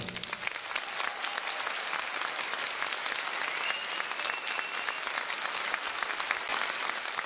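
Theatre audience applauding: dense, steady clapping that begins as the music stops.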